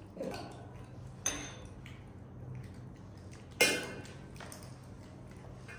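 A few scattered clinks of tableware, a utensil knocking against a dish, the loudest about three and a half seconds in with a short ring. A steady low hum runs underneath.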